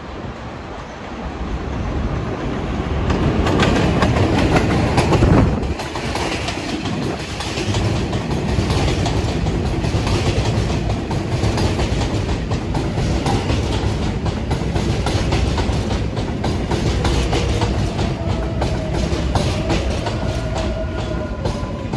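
R188 subway train running at speed, its wheels clicking rhythmically over the rail joints. The noise builds over the first few seconds and then holds steady, and a faint tone comes in near the end.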